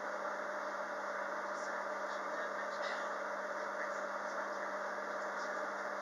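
Steady interior hum inside a Queensland Rail EMU electric train carriage: an even drone with a low steady tone beneath it, and a couple of faint ticks about one and a half and three seconds in.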